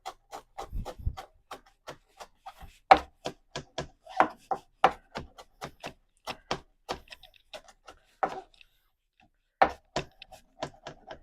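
Kitchen knife chopping fresh parsley fine on a cutting board: rapid, even strokes at about four or five a second, with a brief pause near the end.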